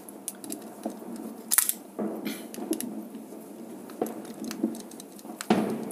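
Scattered small clicks and scrapes of a screwdriver working a brass terminal screw on a plastic switch-and-socket plate, as the wire connection is tightened.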